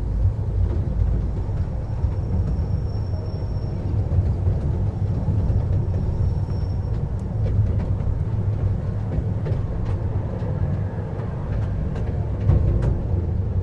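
Miniature park train running, a steady low rumble heard from on board, with scattered clicks in the second half.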